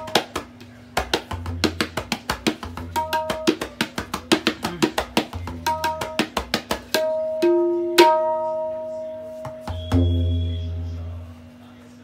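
Tabla pair played by hand: a fast run of crisp finger strokes on the wooden treble drum (dayan) mixed with bass strokes on the metal bayan, for about seven seconds. Then a few open strokes that ring on, and a deep bass stroke about ten seconds in that dies away slowly.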